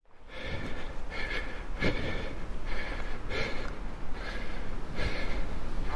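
Heavy rhythmic breathing, like a runner panting, one breath about every three-quarters of a second.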